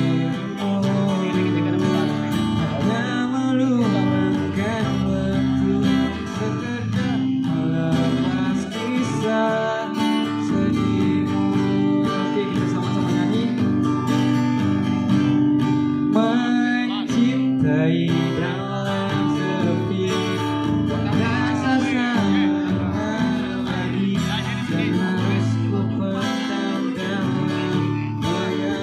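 Acoustic guitar strumming chords through a PA system, with a man's singing voice over it in places.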